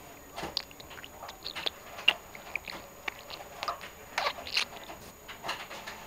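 Budgerigar chattering: a quick, irregular run of short chirps, clicks and squeaks.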